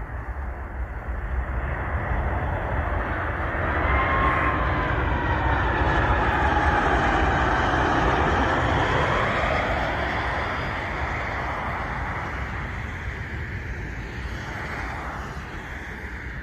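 Southwest Airlines Boeing 737 jet on landing approach flying past low, its engines' whine and rumble swelling and then fading away. As it passes, the whine slides down in pitch.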